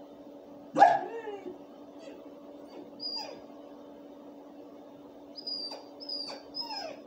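A dog gives one sharp bark about a second in, then whines in short high-pitched whimpers, three of them close together near the end.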